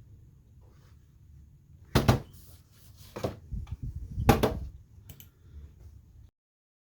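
Handling noises: several knocks and rustles of objects being set down and moved on a surface, loudest about two seconds in and again just after four seconds, over a low hum. The sound cuts off near the end.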